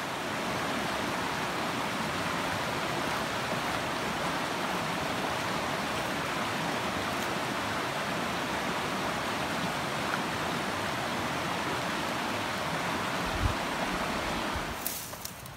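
Steady rush of a river flowing over rocks, with one brief low thump near the end.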